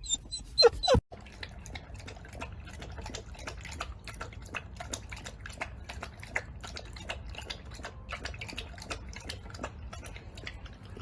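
A Labrador puppy briefly whines, then after a cut laps water from a bowl: a long run of irregular wet clicks, about three to four a second.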